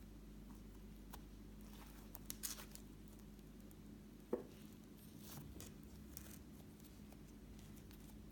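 Slime being squished and handled: faint wet crackles and clicks, with one sharper pop a little over four seconds in.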